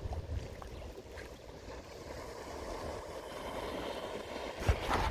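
Steady wash of sea water along the shore, with wind rumbling on the microphone. A few sharp knocks come near the end.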